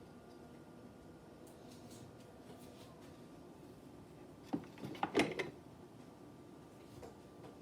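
A spoon clinking and tapping against a coffee cup while stirring: a quick cluster of about five taps a little past halfway, some briefly ringing, over a faint steady hum.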